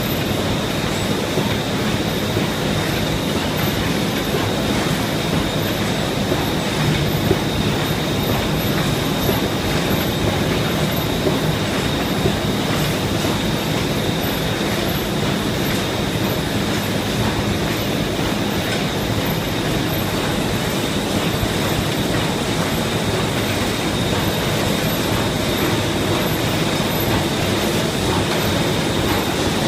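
DingShung FoliuMaster FM-1050 film laminating machine running in production: a steady mechanical rumble and clatter of rollers and drives, with a thin high whine held over it.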